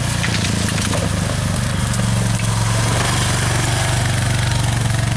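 Engine running steadily with a low, even drone, like a small vehicle in motion.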